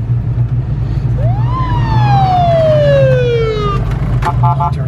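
Police-style siren on a Jeep giving one wail: a quick rise in pitch, then a slow two-second fall, followed by a brief choppy chirp near the end, over a steady low engine rumble.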